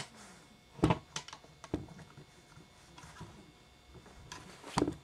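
Plastic clicks and light knocks from handling a plastic Transformers figure in car mode: a sharp click about a second in, another a little later, a few faint ones, then two more near the end.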